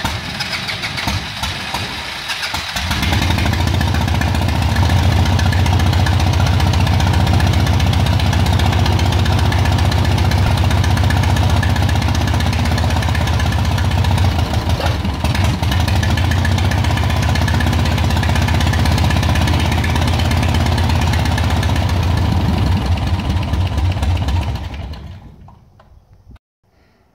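Continental O-200 four-cylinder air-cooled aircraft engine on its first start, catching and coming up to speed about three seconds in, then running rough with an uneven, pulsing beat before it is shut down and winds to a stop near the end. The roughness comes from ignition leads swapped between cylinders 3 and 4 and faulty ignition harnesses, as the owner found afterwards.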